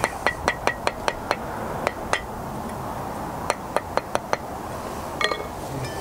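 Brick trowel tapping a coping brick down on its mortar bed to level it against a spirit level: sharp, clinking taps in quick runs of four to six, with a couple of single taps between.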